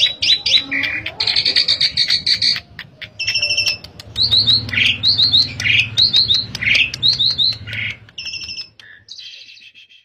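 Asian pied starling (jalak suren) singing in full voice: fast runs of chirps and short whistled notes, with phrases repeated several times over, fading away near the end.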